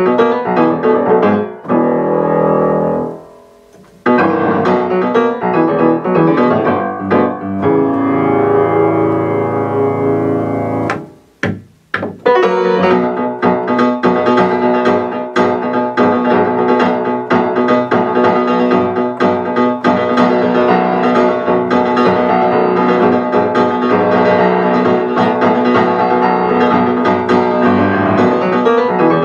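Grand piano played solo: fast, dense chordal playing, twice broken by a chord left to ring and die away into a brief hush, about three seconds in and again around eleven seconds, before continuous fast playing resumes.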